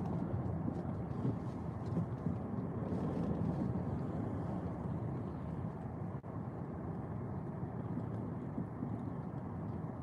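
Steady low rumble of a car's engine and tyres heard inside the cabin as it rolls slowly over a snow-covered road, with a brief dip about six seconds in.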